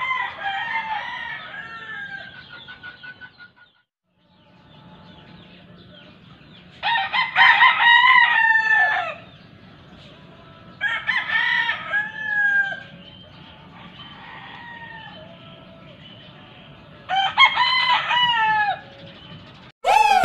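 Game roosters crowing: the end of one crow at the start, then three more long crows a few seconds apart. Loud electronic music cuts in at the very end.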